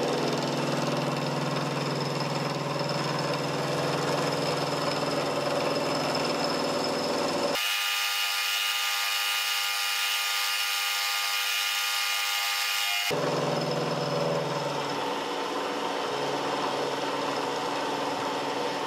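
Milling machine spindle running steadily with an end mill cutting a V-groove into a metal block, a steady machine whine. A stretch in the middle is sped up, making it higher and thinner.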